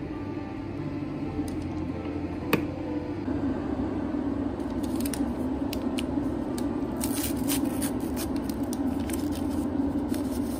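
A steady low hum with one sharp tap about two and a half seconds in, then a run of irregular crisp clicks and crackles through the second half, like small objects being handled.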